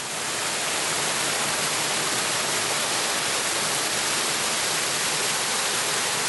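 Water pouring over the rim of a round pothole in a rock riverbed and falling into it: a steady, even rush.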